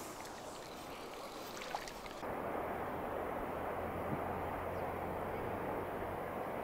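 Steady outdoor rushing noise of wind and river water, its character changing abruptly about two seconds in.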